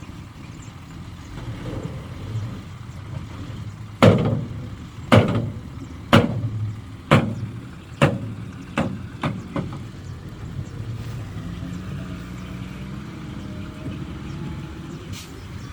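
Heavy construction machinery engine running steadily, broken by a run of seven sharp bangs, about one a second at first and then quicker, the first ones loudest.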